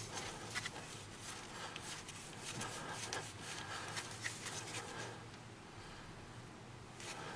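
A 5/16 tap being turned slowly by hand to cut threads in a broken exhaust manifold bolt hole on a GM 454 engine: faint, irregular scraping and small clicks as it cuts, easing off for a couple of seconds near the end.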